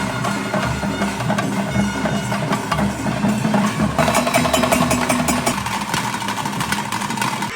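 Bhoota Kola ritual music played live: fast, dense drumming with a shrill reed pipe sounding over it.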